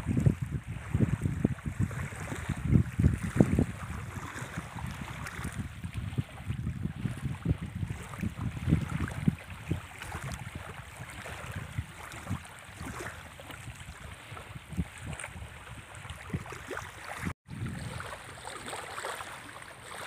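Small freshwater waves lapping and washing onto a shallow muddy reservoir shore, with wind buffeting the microphone in gusts, strongest in the first few seconds. The sound cuts out for a moment about 17 seconds in.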